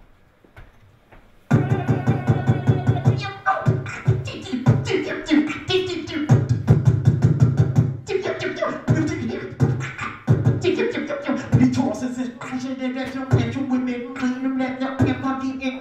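Solo beatboxing into a hand-held microphone. It starts about a second and a half in: fast kick and snare strokes over a low vocal bass. In the second half a steady held tone sits under the beat.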